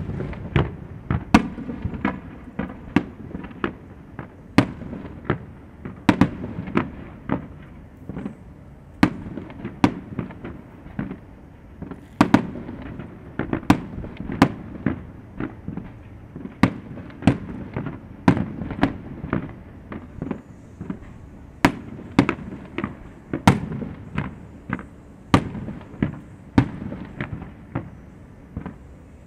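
Aerial fireworks shells bursting in a steady run of sharp bangs, one or two a second, each trailing into a low rumbling echo.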